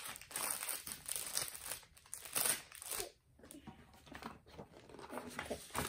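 An activity-kit packet being torn open and its wrapping crinkled by hand: irregular rustling and tearing, loudest about two and a half seconds in.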